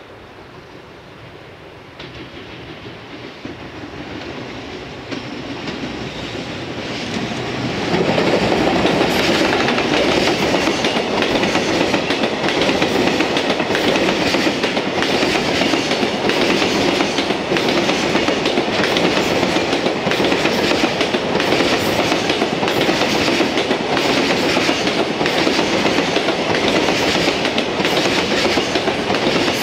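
Container freight train hauled by a JR Freight EF210 electric locomotive, growing louder as it approaches and reaching full level about eight seconds in as it comes alongside. After that a long string of container wagons rolls past with steady, rhythmic wheel clatter over the rail joints.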